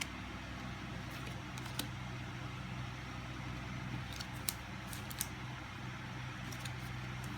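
Steady low hum with a few faint, scattered clicks of trading cards being handled and flipped through.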